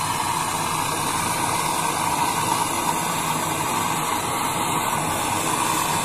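Gas brazing torch burning with a steady rushing hiss as its flame heats a copper pipe joint on a refrigerator's refrigerant line.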